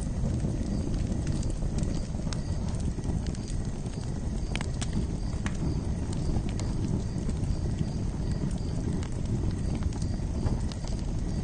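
Campfire crackling: a steady low rumble of burning wood with scattered sharp pops and snaps, a few louder pops about four to five seconds in.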